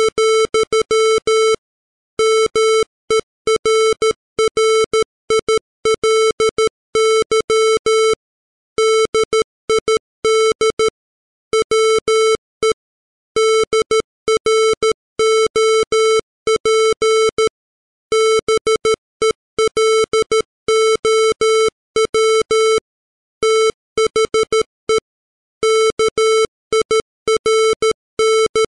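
Computer-generated Morse code at 13 words per minute: a 440-hertz square-wave tone keyed on and off in dots and dashes, spelling out the text of Coleridge's The Rime of the Ancient Mariner. Brief gaps separate the letters and longer pauses separate the words.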